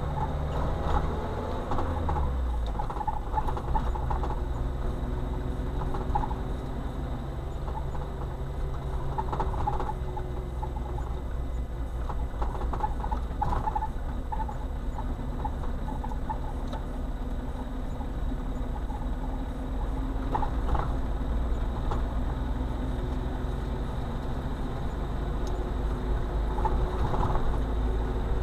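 Car interior noise recorded by a dashcam while driving: steady engine hum and tyre rumble on the road, with scattered short squeaks and rattles from the cabin. The engine note drops about two seconds in.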